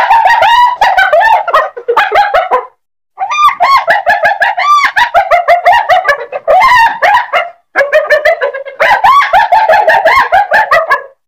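Spotted hyena giggling: rapid runs of short, pitched notes that rise and fall, about five a second, breaking off briefly twice and stopping just before the end.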